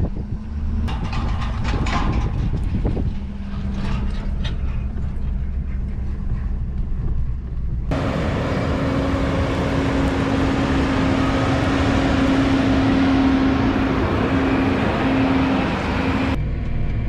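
Vehicle engines running in several edited clips: a low engine drone with a steady hum and a few clicks, then an abrupt change about eight seconds in to a louder, hissier machine noise with a steady higher hum, and another abrupt change near the end.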